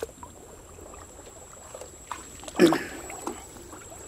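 Shallow pond water sloshing and lapping as someone wades or moves through it, with small splashes and one louder splash a little past halfway.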